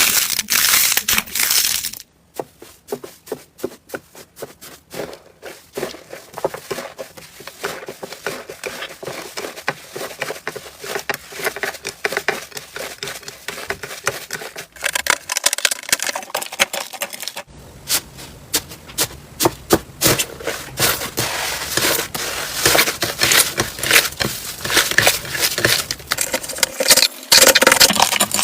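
Slime being squeezed, poked and stretched by hand, giving a dense run of sticky clicks, pops and crackles. The sound changes abruptly about two seconds in and again past halfway.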